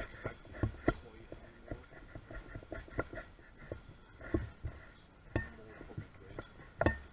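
Small waves lapping at the riverbank: irregular soft clicks and splashes, with low bumps and a faint steady high whine underneath.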